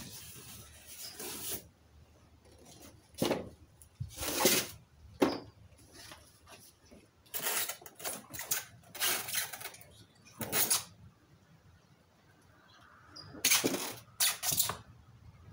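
Cardboard box and foam packing rustling and scraping as a boxed winch is unpacked by hand, in irregular bursts with sharp knocks between.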